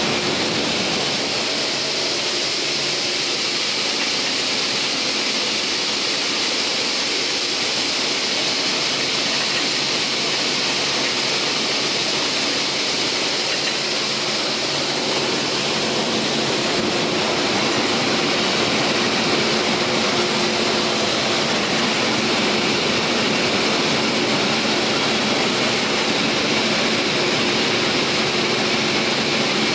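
TOS Svitavy PWR 422 double-shaft multi-rip saw running without cutting: a steady hiss of motors and spinning saw blades with a low hum underneath, changing slightly about halfway through.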